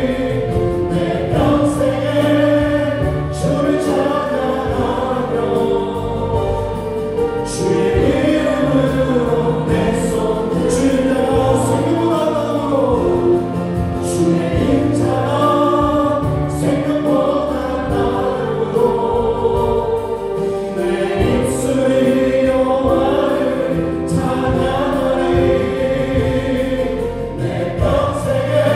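Group singing a Korean worship song, accompanied by a Yamaha Montage 8 keyboard, bass guitar and drums.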